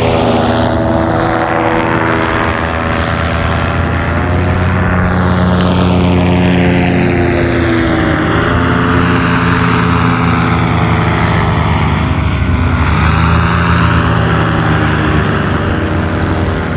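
Paramotor (powered paraglider) engine and propeller droning loudly overhead, a steady buzz whose pitch dips a couple of times as the craft passes and turns.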